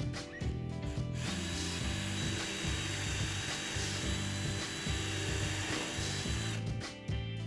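Power drill running steadily for about five seconds, starting about a second in, drilling a pilot hole for a strike plate screw into a door sill.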